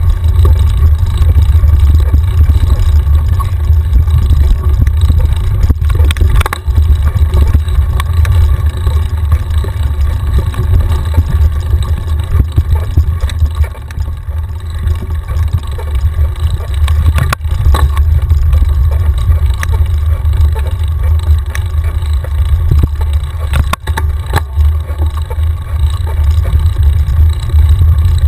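Heavy wind rumble and buffeting on a mountain-bike-mounted camera's microphone while riding a dirt trail, with tyre and trail noise underneath and a few sharp knocks from bumps.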